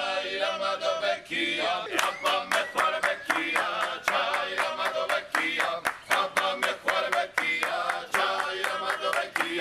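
A men's group singing a Georgian folk song, with a steady beat of hand-clapping that joins about two seconds in to accompany a dance.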